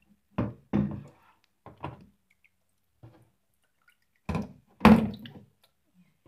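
Knocks and thumps from handling an evaporative mist fan's water tank and housing as the tank is put back in place: a few in the first two seconds, then two more, the loudest, about four to five seconds in.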